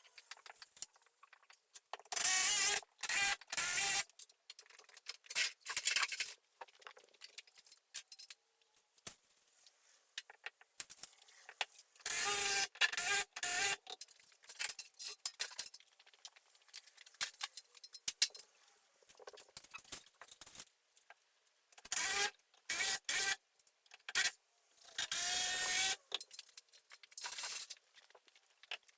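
Craftsman cordless impact driver driving long wood screws, in about five clusters of short whining, rattling bursts, with quieter scraping and handling noises between them.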